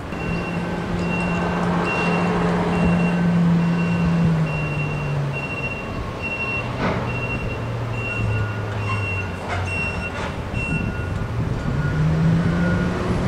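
Heavy container-handling forklift's diesel engine running while it moves a container, with a reversing alarm beeping about twice a second. The engine note drops about halfway and climbs again near the end, and a second, lower-pitched reversing beeper starts about two-thirds through.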